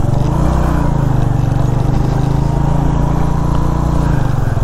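Suzuki GS150 motorcycle's single-cylinder four-stroke engine running at steady revs under way, with road noise; the engine note eases off shortly before the end.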